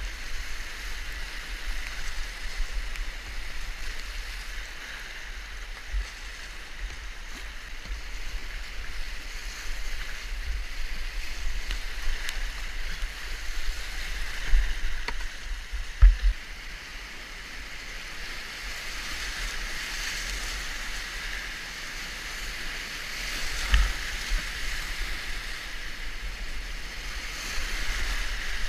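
Whitewater rapids rushing around a kayak as it runs the river, with paddle splashes. A few sharp knocks stand out, the loudest about 16 seconds in.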